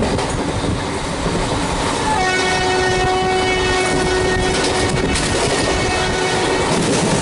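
WAP-4 electric locomotive's horn sounding one long, steady blast starting about two seconds in, over the rushing noise of an express train running through at speed.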